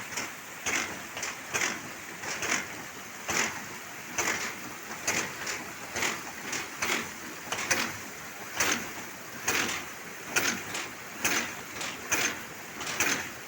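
Hydraulic ram pump working, its waste valve slapping shut in a steady beat a little under once a second, each clack followed by a short rush of water. The unpowered pump is lifting water uphill.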